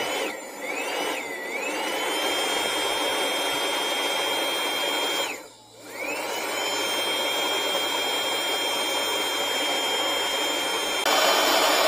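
Cordless electric blower spinning up with a rising whine and running steadily. It cuts out about five and a half seconds in, spins up again, runs louder for the last second and then stops. It is blowing air through the engine's drain to push out the last of the old engine oil.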